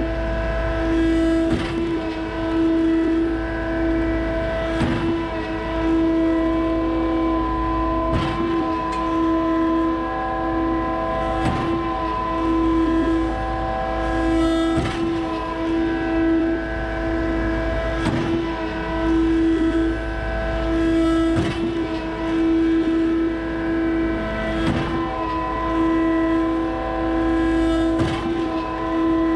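Concrete boom pump running under load: a steady hydraulic drone with a sharp knock about every three seconds as the pistons change stroke.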